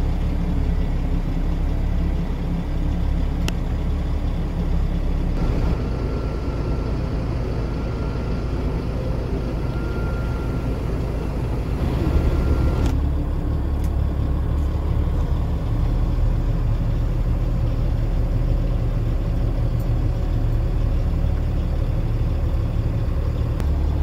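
Volvo semi truck's diesel engine running steadily under load, heard from inside the cab as a low, even drone.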